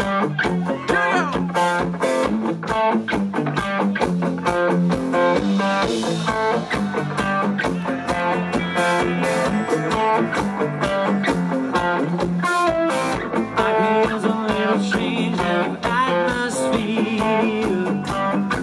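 Live country rock band playing an instrumental intro, with acoustic guitar strumming, electric bass and a steady beat, before the vocals come in.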